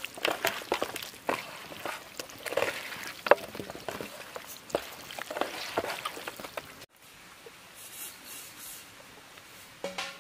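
Hands squelching and kneading chicken pieces with spice masala on a metal plate: irregular wet squishes and clicks. After about seven seconds it cuts off abruptly to faint outdoor background.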